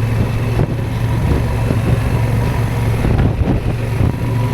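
Motorcycle engine running steadily at low speed, a constant low drone.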